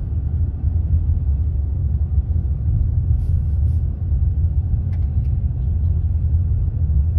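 Steady low rumble of a car driving, heard inside the cabin: road and engine noise, with a few faint clicks midway.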